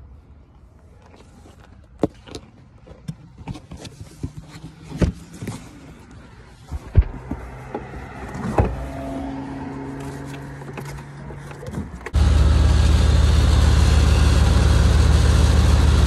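Scattered knocks and clatter of handling, then, about twelve seconds in, the truck's V8 comes in suddenly, running at a steady idle on its newly fitted replacement distributor.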